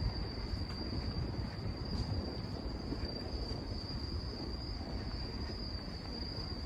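Crickets trilling steadily as one high, unbroken tone, over a low outdoor rumble.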